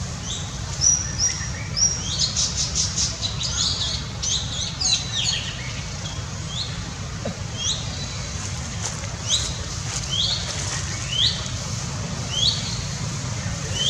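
Small birds chirping, a quick run of short high notes in the first few seconds, then single hooked chirps about once a second, over a steady low hum.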